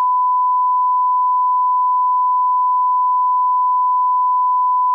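Broadcast line-up test tone played with colour bars: a single pure, unwavering beep held at one pitch.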